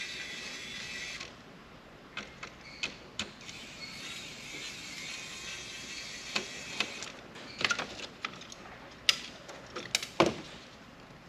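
Kaiweets ES20 electric screwdriver's small motor whining as it backs screws out of a laptop, in two runs: one that stops about a second in, and a longer one of several seconds that starts about two and a half seconds in. Light clicks and taps of small parts and screws being handled run throughout, with a cluster of louder clicks near the end.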